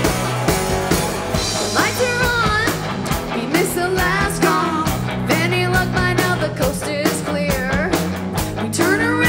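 Live rock band playing: electric guitars, ukulele, bass and drum kit, with a woman singing lead from about two seconds in.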